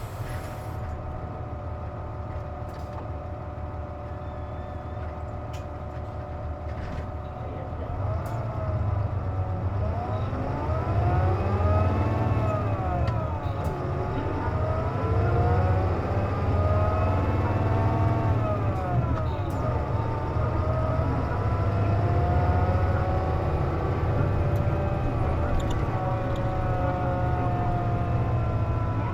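Hino Rainbow non-step city bus heard from inside the cabin, with the air conditioning running: first idling with a steady whine, then pulling away from about 8 seconds in. The engine pitch rises and falls several times as it works up through the gears. The uploader notes that this bus makes an abnormal noise when the air conditioning is on.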